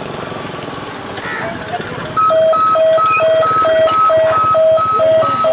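A low rumble, then about two seconds in a loud, regular two-tone beeping starts and repeats about four times a second.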